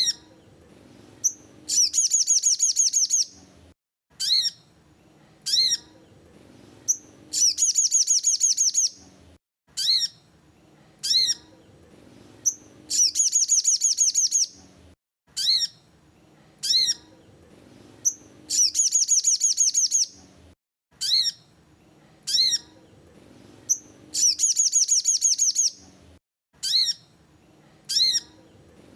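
Sogon birdsong used as a lure call: sharp, high, down-slurred chirps followed by a fast, rattling trill of rapid notes. The phrase repeats about every six seconds.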